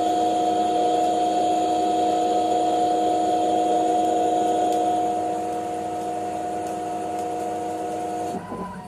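Denford Novaturn CNC lathe running under program, its spindle turning the workpiece while the tool takes a cut, with a steady whine of several held notes. It gets a little quieter about halfway through, and near the end the whine drops out briefly with a short falling sweep as the machine changes its motion.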